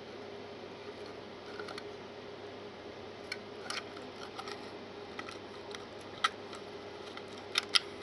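Scattered small clicks and taps from fingers handling a plastic PIR sensor housing and working a wire into its screw terminal block, the sharpest about six seconds in and two more near the end, over a faint steady hum.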